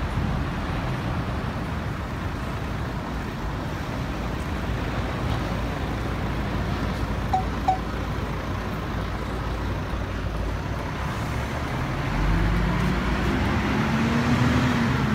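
City street traffic: a steady rumble of passing cars, with two short high beeps about halfway through and a vehicle engine rising in pitch as it pulls away near the end.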